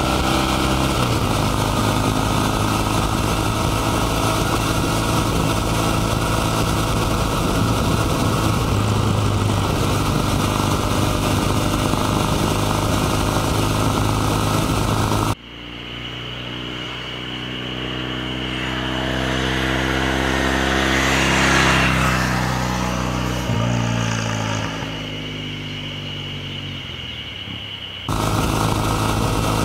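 Kawasaki W800 Cafe's air-cooled 360° vertical twin running under way, heard close up from on the bike. Halfway through it changes to a roadside pass-by: the bike approaches, is loudest about two-thirds of the way in, and fades away with its note dropping in pitch. The close-up riding sound returns near the end.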